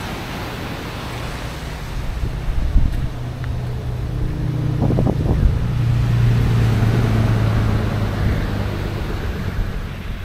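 Wind on the microphone and surf on the shore, with a low vehicle engine drone that swells through the middle and fades near the end.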